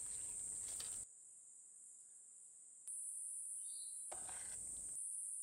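Steady high-pitched chirring of insects, dropping in level and coming back at several abrupt cuts. A short burst of broader rustling noise comes about four seconds in.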